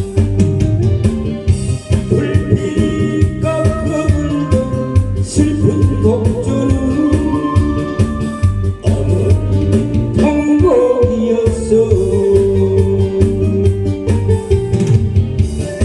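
Korean trot music: an instrumental passage of a backing track, an organ-like electronic keyboard melody over a steady beat.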